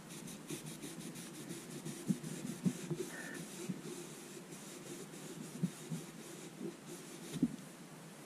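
A cloth rubbing over a steel crankshaft journal, wiping it clean after polishing, with several soft, irregular knocks as hands handle the crank.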